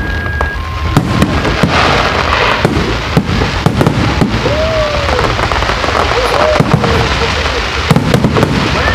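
Fireworks display: a rapid run of sharp bangs and crackling bursts, thickest about a second in and again near the end, over a steady low rumble.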